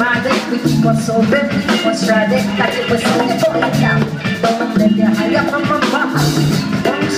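A live band playing an instrumental passage: a bass line, drum kit and hand percussion over guitar.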